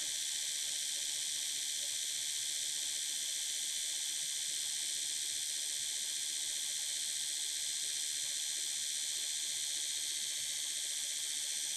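Oral-B Vitality electric toothbrush running, a steady, even high buzz.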